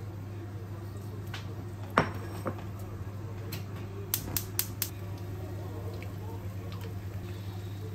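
Wooden spatula and bowl working in a non-stick frying pan as leftover stew is tipped in and broken up: a sharp knock about two seconds in, a softer one just after, then four quick light taps a little after four seconds. A steady low hum runs underneath.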